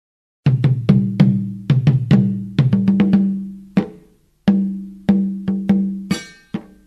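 Percussion music: pitched drum strikes, each ringing and dying away, about two a second, starting suddenly about half a second in, with a brief pause midway and a higher ringing layer joining near the end.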